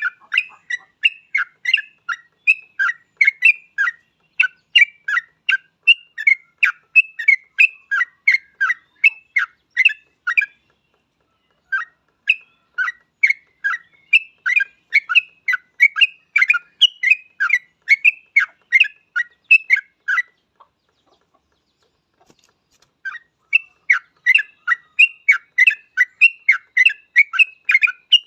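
Yellow-vented bulbul (trucukan) singing a fast, chattering run of short notes, about three a second, in long bursts that break off twice for a second or more.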